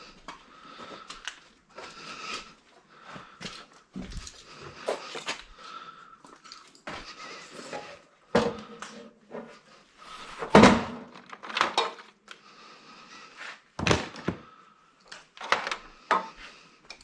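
Irregular knocks, thunks and clatter of electronic scrap being handled and set down, the loudest thud about ten seconds in.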